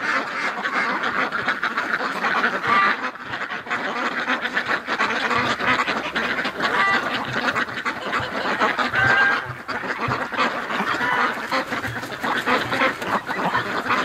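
A large flock of domestic ducks quacking non-stop, many calls overlapping, with geese honking among them.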